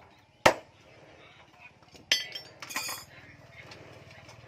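Hand forging of an axe: a single sharp hammer blow on metal about half a second in. Around two and three seconds in, metal pieces clink against each other with a brief ringing.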